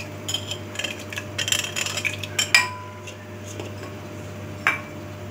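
Metal spoon scraping and clinking against a plate as cut beetroot pieces are pushed off into a glass blender jar. There is a quick run of clinks and scrapes, a sharper clink with a brief ring about two and a half seconds in, and one more clink near the end.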